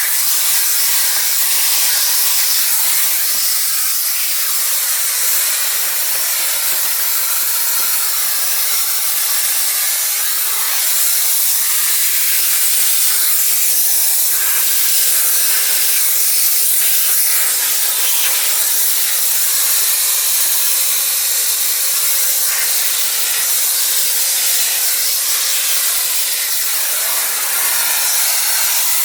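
Electrolux Ergospace canister vacuum cleaner running: a steady, airy hiss of suction through the hose and nozzle, dipping slightly now and then as the nozzle is moved.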